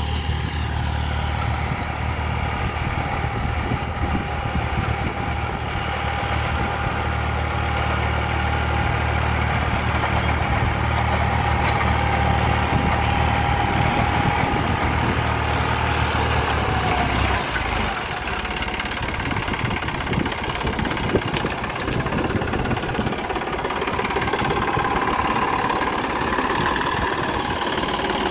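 Massey Ferguson 9500 tractor's diesel engine running steadily under load while it pulls a rotavator through the soil. About two-thirds of the way through, the sound shifts as the engine is heard from close by.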